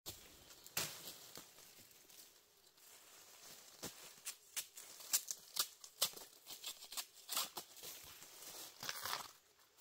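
Machete trimming freshly dug bamboo shoots among dry leaf litter: irregular sharp cracks and rustles, thickest in the second half.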